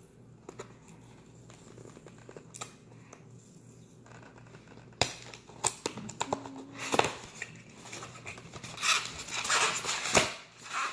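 A small cardboard product box being opened and its styrofoam packing pulled out. There are a few light handling clicks at first, then from about five seconds in loud rustling, crinkling and sharp clicks.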